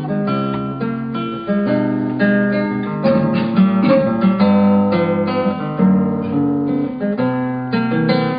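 Classical guitar playing the picked instrumental introduction of a song, melody notes over bass notes.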